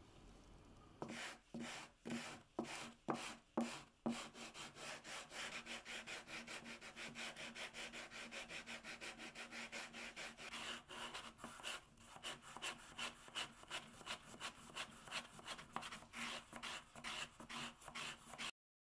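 Hand sanding the edge of a wooden template with sandpaper on a block, smoothing it to the drawn line. A few slow, louder strokes give way to quick, even back-and-forth rubbing, several strokes a second, that stops abruptly near the end.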